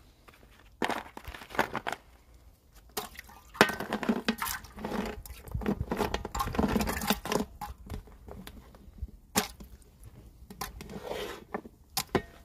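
Dried medicinal roots and thorny twigs rustling and crackling as they are handled on a plastic tray and dropped into a cast-iron cauldron, with light knocks among them.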